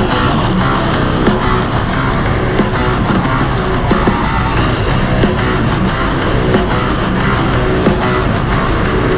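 Heavy metal or hard rock music with distorted electric guitars and a steady beat.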